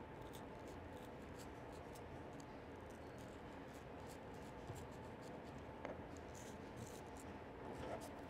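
Faint scratchy strokes of a small carving knife cutting and scoring into watermelon rind, with a couple of slightly sharper ticks near the end, over steady room noise.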